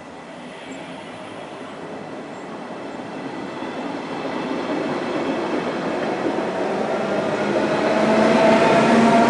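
RegionAlps regional electric train rolling past along the platform, its rumble growing steadily louder; over the last few seconds a whine of several tones comes in and rises slightly in pitch.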